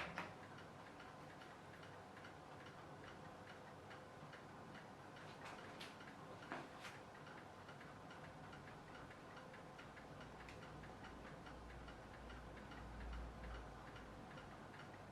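Faint, even ticking of a clock in a quiet room, with a sharper click at the start and a few louder clicks about six to seven seconds in.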